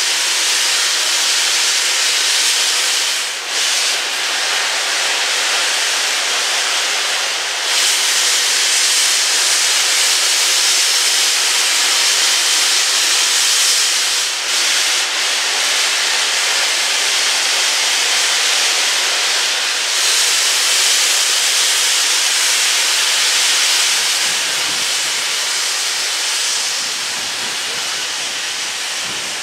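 Steam locomotives blowing off steam: a loud, steady hiss that dips briefly a few times and eases slightly near the end.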